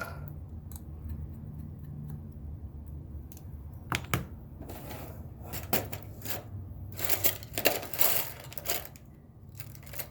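Small repair tools and tiny screws being handled on a workbench: scattered light clicks, then a busier stretch of clicking, rattling and scraping in the second half, over a steady low hum.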